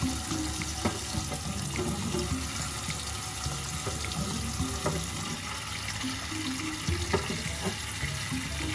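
Kitchen tap running steadily onto fresh eggs in a stainless-steel sink, with several sharp knocks as more eggs are set down in the sink among the others.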